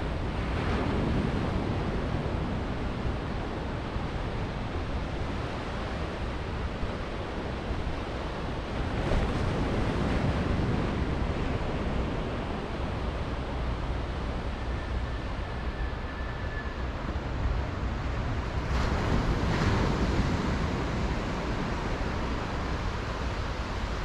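Small waves breaking and washing up a sandy beach on a nearly calm sea, a steady hiss of surf that swells louder three times, about nine seconds apart.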